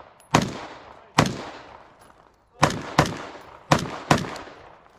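Six gunshots in a rapid string at uneven spacing, two of them fired as quick pairs less than half a second apart, each shot trailing off in a long echo.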